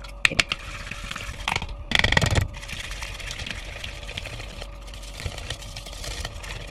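An electric mixer's whisk beater worked by hand in a mixing bowl, stirring a thick peanut butter sauce: steady scraping and light clicking of the wires against the bowl, with a louder clatter about two seconds in.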